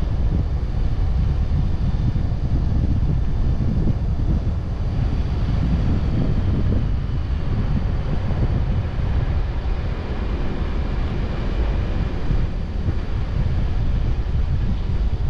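Steady rumble of wind buffeting the microphone of a car-mounted camera, mixed with the road noise of the moving car.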